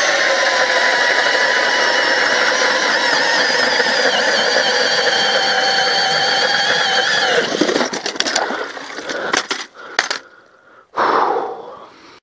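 Cordless drill-powered ice auger (a Milwaukee Fuel drill turning the auger bit) boring through lake ice, with a steady, loud motor whine. The whine stops about seven seconds in, followed by a few scattered knocks and scrapes.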